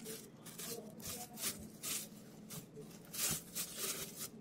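Hands kneading and squeezing borax-activated clear PVA glue slime, making irregular wet squishes and crackles, two or three a second, loudest about three seconds in. A faint steady hum runs beneath.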